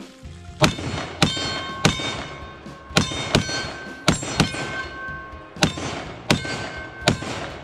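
About ten .308 Winchester rifle shots fired in quick succession at close range. Each bullet hits a steel plate target, which rings out like a bell with a clear, steady tone after every hit. The plate hangs from a single carriage bolt, which lets it ring freely.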